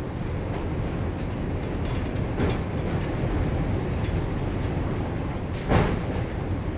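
Bicycle parts and hand tools clinking during disassembly: a few light metallic clicks, then one louder clank about three-quarters of the way through, over a steady low rumble.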